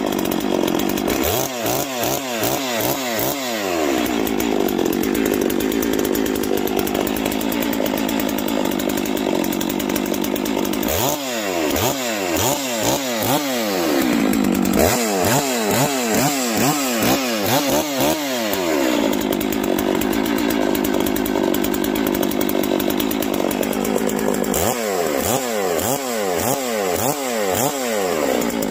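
Farmertec Holzfforma G660, a 92cc two-stroke chainsaw, running at idle on its factory carburettor settings. Four times it is given a series of quick throttle blips, about two a second, each revving up and falling back toward idle.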